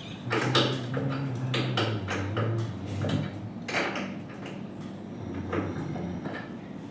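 Repeated clicks, knocks and clatter of hard parts and tools being handled, over a low steady hum.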